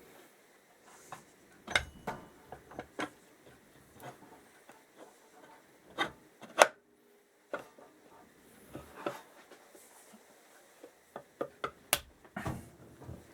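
Metal engine parts handled by hand on a workbench: irregular clicks, light knocks and scraping as a side cover is fitted over a motorcycle's generator rotor, with the sharpest knock a little past the middle.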